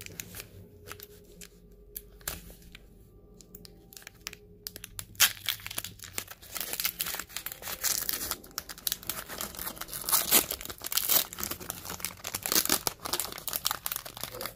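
Foil wrapper of a Pokémon TCG Sword and Shield booster pack being torn open and crumpled by hand: a few scattered crackles at first, then continuous foil rustling and tearing from about five seconds in.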